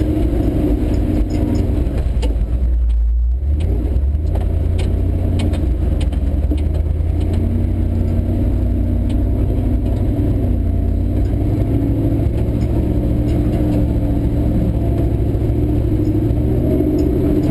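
Ford F100 pickup's engine running at low trail speed, heard from inside the cab, with a steady low rumble and small rattles and clatter from the cab as the truck works over rutted ground. The engine note eases off for about a second around three seconds in.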